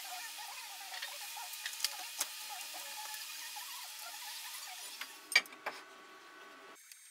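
Welded steel mobile base on casters being handled on a wooden workbench: a steady rolling rustle with faint wavering squeaks and a few light knocks. About five seconds in come two sharper metal clicks, and near the end the sound drops away to a faint steady hum.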